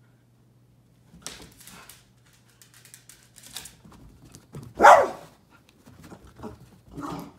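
West Highland white terrier barking in short excited bursts while chasing a laser pointer dot, the loudest bark about five seconds in.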